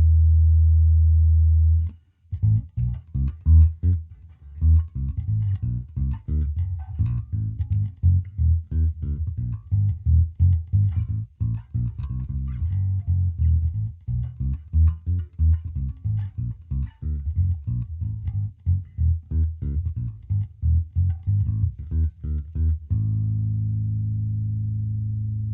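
Electric bass guitar with humbucking pickups played through a newly built handwired onboard 3-band EQ preamp. A held low note stops about two seconds in, then a run of quick plucked notes goes on for some twenty seconds, and a sustained low note rings out near the end.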